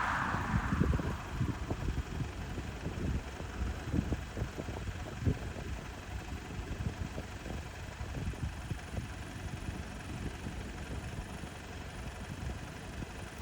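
Low, uneven rumble with irregular soft thumps. A louder rushing noise fades away in the first second.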